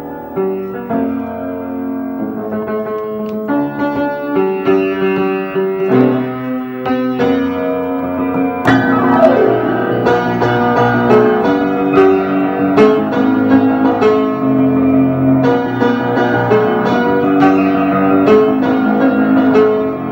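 Piano music, with chords and a melody. It turns louder and fuller about nine seconds in.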